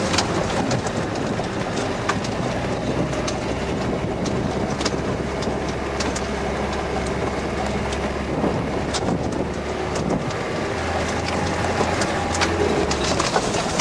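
Land Rover Defender 90's 300Tdi diesel engine running under way, heard from inside the cab, with tyre noise on a rough dirt track and frequent short rattles and knocks from the body over bumps. The low engine drone shifts up for a couple of seconds near the end.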